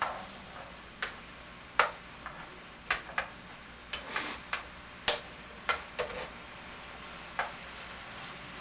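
Sharp light clicks and taps of a utensil against a pan, irregular at about one a second, over the faint steady hiss of a lemon and white wine sauce simmering.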